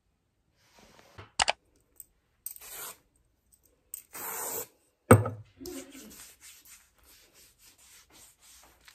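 Aerosol sunscreen spray can hissing in two short bursts, the second longer. About five seconds in comes a sharp thump, the loudest sound. Then hands rub the sunscreen into bare arms in quick strokes, about four a second.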